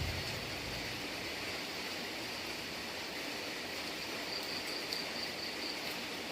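Steady rain falling, an even hiss. A thin high-pitched tone comes and goes twice over it, and a low rumble dies away in the first second.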